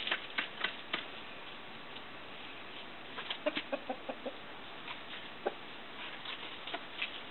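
Chickens clucking: a quick run of about six short clucks a little past the middle, one more a second or so later, with a few sharp clicks near the start.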